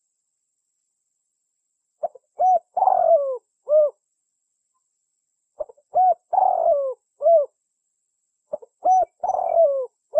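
Spotted dove (tekukur) cooing song used as a lure call: three like phrases, each a short note, a coo, a longer falling burry coo and a final coo, repeating about every three and a half seconds with silence between.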